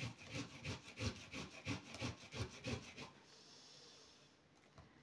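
Onion being grated on a hand grater: rhythmic rasping strokes, about three a second, that stop about three seconds in.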